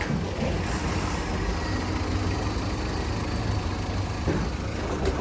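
A heavy diesel engine running steadily at idle, a low constant hum.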